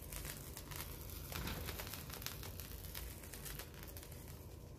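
Handheld spray firework burning, its sparks giving off a dense, irregular crackling and fizzing.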